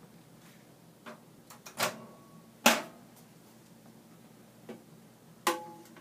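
Microwave oven door and dishware being handled: a few separate sharp knocks and clunks, the loudest about two and a half seconds in, and one more near the end that leaves a brief ringing.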